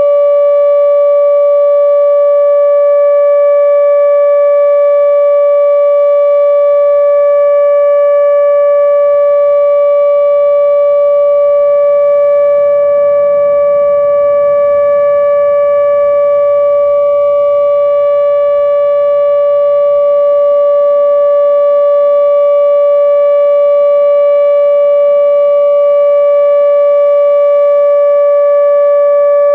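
ATI HPSS-32 electronic outdoor warning siren sounding its steady alert tone: one loud, constant pitch that holds without rising or falling. It is the nuclear power plant's emergency alert signal, sounded here as a scheduled test.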